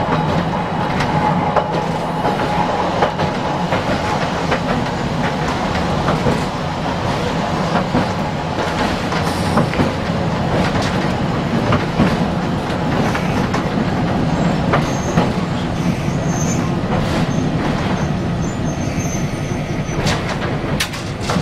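Toyohashi Railway tram running along street track, heard from inside the car: a steady running rumble with scattered sharp clicks from the wheels on the rails. A faint whine in the first few seconds fades away.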